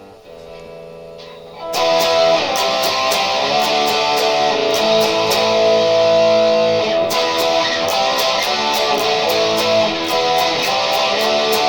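Harley Benton JA-60 Jazzmaster electric guitar with a hot P90-style pickup being played: a few soft held notes, then loud strummed chords from about two seconds in.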